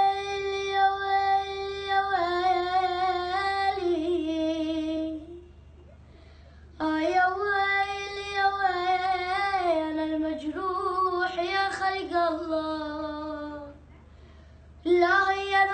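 A boy singing alone without accompaniment, in long held notes with vibrato and ornamented turns. Two long phrases are separated by a pause of about a second and a half, and a third phrase starts near the end.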